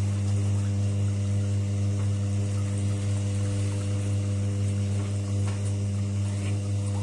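Top-loading washing machine running, its motor giving a steady hum as the agitator churns the soapy wash water.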